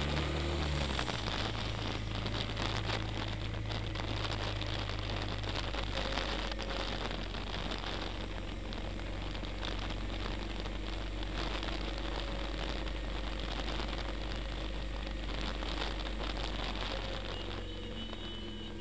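Wind and road noise rushing over a small camera microphone on a vehicle travelling at highway speed, with a steady low engine hum underneath.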